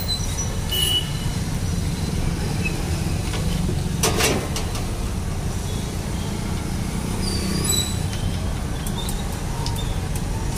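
Steady low rumble of outdoor street noise, with a sharp clank about four seconds in and a few faint high chirps.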